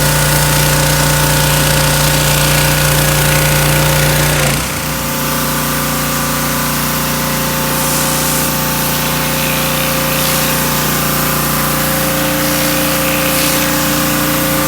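Generac 2800 pressure washer's gasoline engine running steadily, with high-pressure water hissing through the surface cleaner onto concrete. About four and a half seconds in, the engine note changes abruptly, then runs steady again.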